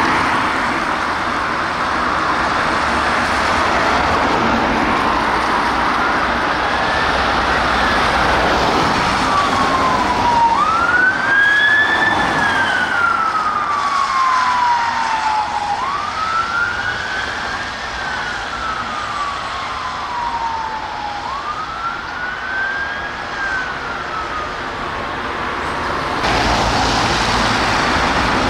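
Unmarked police car's siren on a Vauxhall Astra, sounding a slow wail that rises quickly and falls slowly, about five seconds a cycle, over road traffic noise. The siren starts a few seconds in and fades out near the end, leaving only traffic noise.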